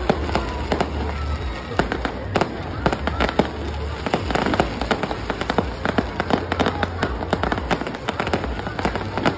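Fireworks display: a rapid, continuous run of sharp bangs and crackles, several a second.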